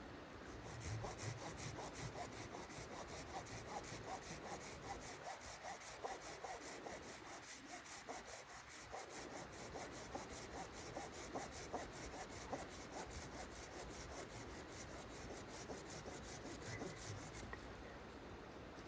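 Hand saw cutting wood in rapid, even back-and-forth strokes, starting about a second in and stopping near the end.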